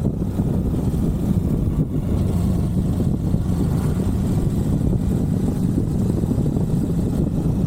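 Suzuki V-Strom 1050XT's V-twin engine running steadily while the motorcycle is under way, a low, even rumble heard from the onboard microphone.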